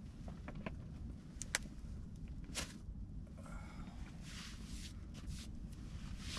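Steady low rumble of distant highway traffic, with soft rustling and a few sharp clicks close by.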